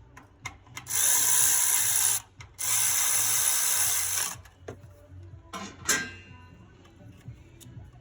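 Milwaukee cordless power tool spinning in two runs of a second or two each, running small bolts. A few metal clicks follow, then a ringing clink about six seconds in.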